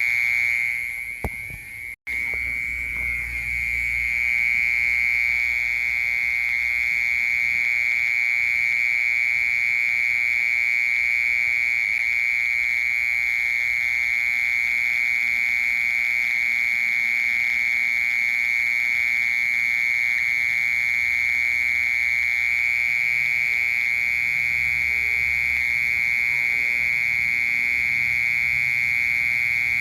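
A cricket's continuous trill: one unbroken, steady high-pitched tone. It dips and cuts out for an instant about two seconds in, then carries on.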